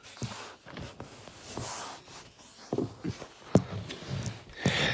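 Rustling and scattered light clicks and knocks of things being handled, with one sharper click about three and a half seconds in.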